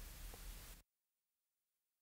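Near silence: a faint hiss trails off within the first second, then complete digital silence.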